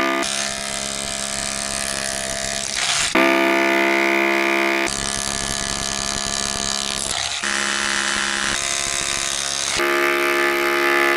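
DeWalt DCH263 cordless SDS-plus rotary hammer in hammer-only mode, its chisel bit pounding an old reinforced concrete slab. A steady, rapid hammering with a humming pitch that shifts abruptly several times.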